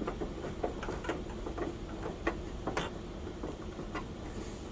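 Screwdriver turning a screw into the plastic bottom housing of an iMac G3: a few small, irregular clicks and ticks.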